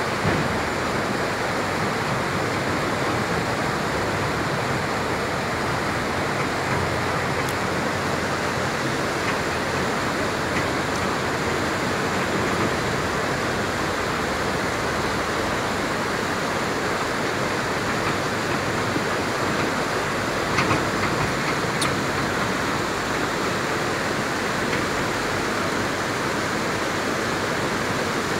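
Rushing river water tumbling over shallow rapids, a steady, even rush.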